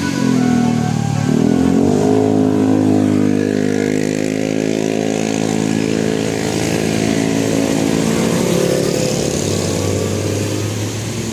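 Bus engine accelerating: its pitch dips just after the start, climbs steeply over the next second, then holds with a slow rise before easing near the end.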